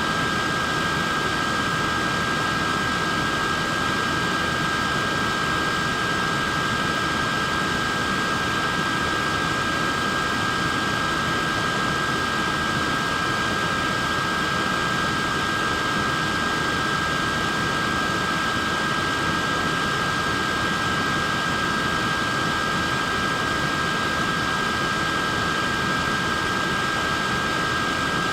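Portable neck fan running steadily: an even whoosh of moving air with a constant motor whine made of two close high tones.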